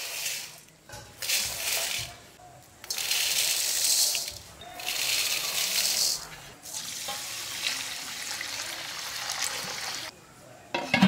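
Water pouring and splashing in several separate spells of one to two seconds each, followed by a longer, softer pour of about three and a half seconds.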